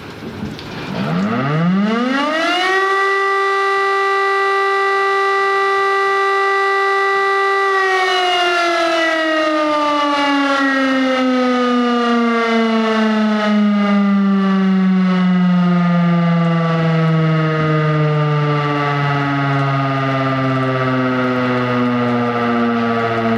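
Kolmeks civil defence siren on test: it winds up in about two seconds to a steady tone, holds it for about five seconds, then winds down slowly with the pitch falling for the rest of the time.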